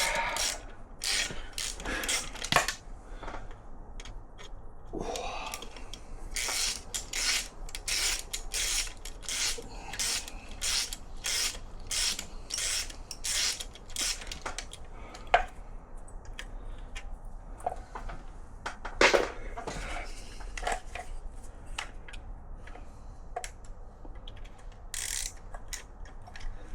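Hand ratchet wrench clicking in repeated strokes as bolts are undone on a motorcycle engine, with a few sharper metal knocks in the second half.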